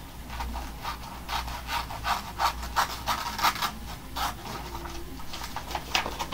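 Scissors snipping through a paper print, short even snips about three a second, pausing for about a second near the end.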